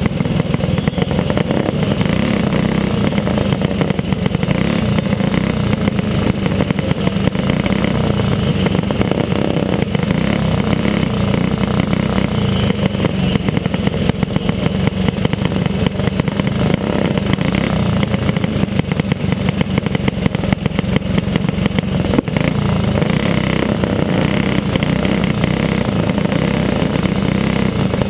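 Racing go-kart engine running hard at racing speed, heard from on board the kart: a steady, loud drone of rapid firing pulses, with another kart's engine running just ahead.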